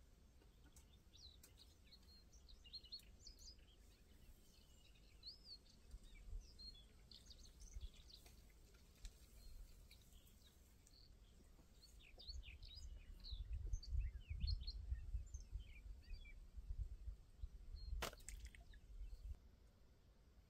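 Small birds chirping and calling, many short high notes scattered throughout. About two thirds of the way in, a low rumble rises for several seconds, and near the end there is a single sharp click.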